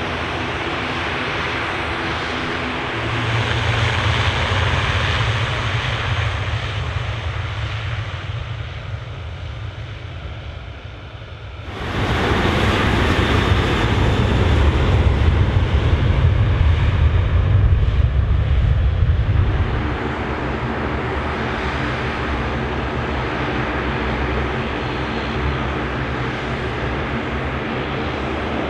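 Airliner engines running, a steady rumble and whine. It swells a few seconds in, dips, then jumps suddenly louder about twelve seconds in and eases back to a steady level about eight seconds later.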